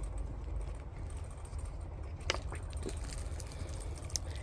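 A few light clicks and knocks from a plastic standpipe tube and its fittings being worked loose from a water line, over a steady low hum.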